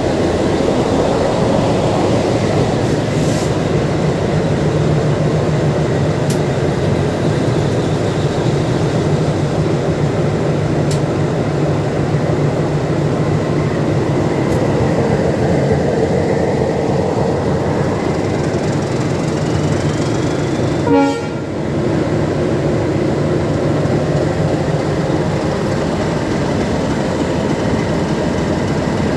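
Diesel locomotive engine running steadily after start-up, a dense, even mechanical noise with a low hum. A single short, sharp blip stands out about three-quarters of the way through.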